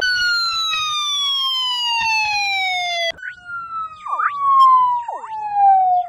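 Edited police siren sound effect: one long wail that falls slowly in pitch, breaks off about three seconds in and starts again from the top, with quick swooping chirps over the second half.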